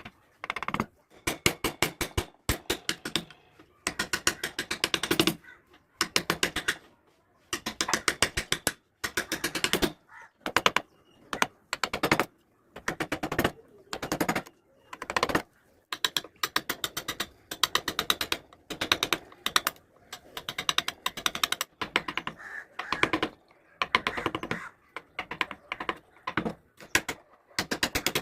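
Hand carving tools working wood: rapid sharp taps, a dozen or more a second, in bursts of about a second with short pauses between.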